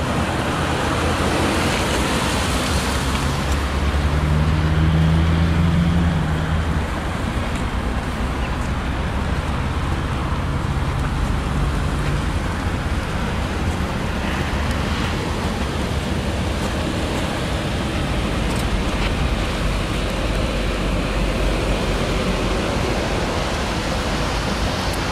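Ford Explorer's 3.5-litre V6 running, a low engine note that swells for a few seconds near the start and then fades, over a steady rushing noise.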